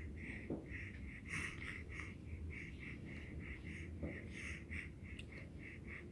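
A three-month-old baby's congested breathing, with short wheezy snuffles about three times a second, the sound of a blocked nose from a cold.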